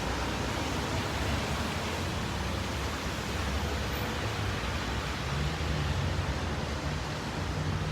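Steady rain, an even hiss without breaks, with a low hum underneath.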